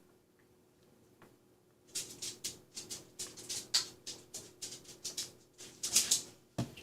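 Soldering work on wires: after about two seconds of quiet, a run of short, irregular scratchy hisses, several a second.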